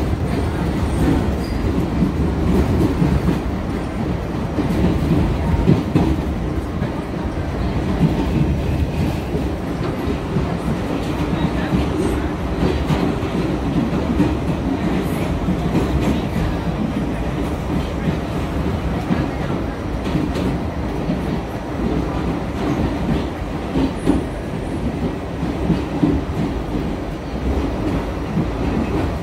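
New York City subway B train running through a tunnel, heard from inside the car: a steady rumble of the wheels and running gear, with repeated clicks of the wheels passing over rail joints.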